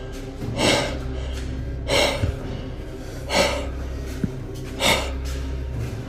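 A person breathing heavily and tensely, one loud breath about every second and a half, over low droning music.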